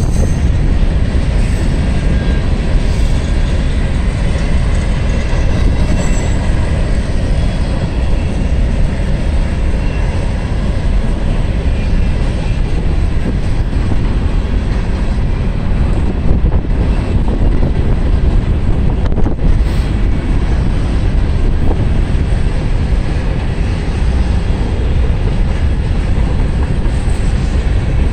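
Loaded freight train of covered hopper cars rolling past close by: a steady, loud rumble of steel wheels on rail.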